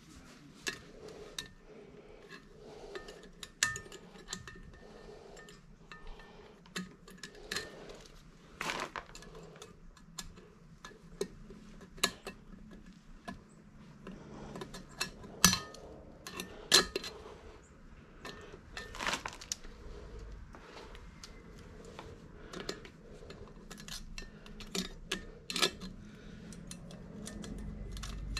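Metal tools and parts being handled, with irregular clinks and knocks at uneven intervals; the sharpest knocks come just past the middle. A faint steady hum lies underneath.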